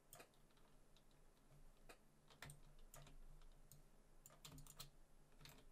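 Faint, irregular clicking of a computer mouse and keyboard while drawing curves with a pen tool, over near silence.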